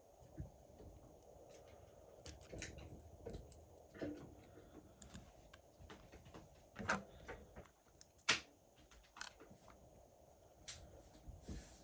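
Scattered light clicks and taps of small tools and parts being handled during a phone battery repair, irregular and faint, with a couple of sharper ticks past the middle.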